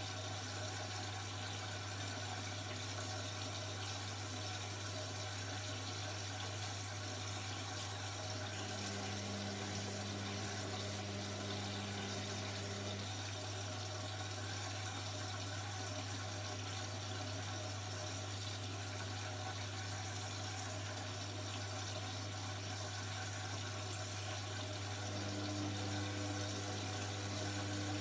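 Indesit 71252 washing machine with water running through it over a steady low electrical hum. A second, higher hum comes in twice for a few seconds.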